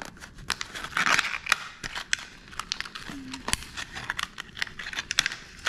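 Plastic blister package of a fishing lure being pried open by hand: a busy run of sharp clicks and crackles from the stiff plastic and card, with bursts of rustling.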